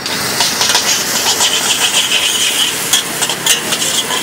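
Noodles and greens sizzling in a hot steel wok, with a steady loud hiss, while a metal ladle scrapes and knocks against the wok in repeated irregular strokes as they are stir-fried.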